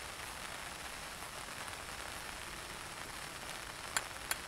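Steady rain falling on a tarp shelter, an even hiss, with two sharp clicks near the end.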